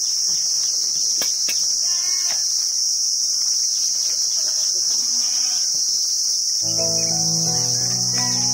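A steady, high-pitched insect drone, with short bird calls over it. About six and a half seconds in, background music with held notes comes in.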